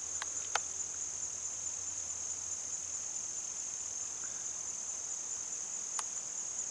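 A chorus of insects trilling: one unbroken high-pitched tone with a few faint clicks.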